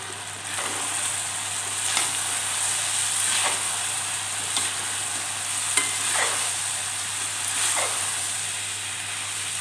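Vegetables sautéing with a steady sizzle in an aluminium pressure cooker, stirred with a perforated steel ladle that scrapes the pan about every second and a half. They are being fried with chilli powder, turmeric and salt.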